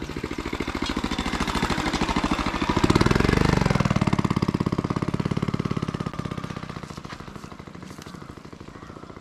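A motor vehicle passing close by: a fast, even engine pulse that grows louder, peaks about three seconds in, then fades away.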